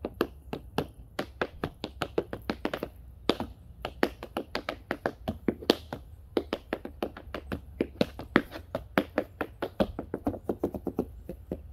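Tap shoes' metal taps striking a wooden board laid on the ground: a quick, uneven run of sharp taps, several a second, with no music.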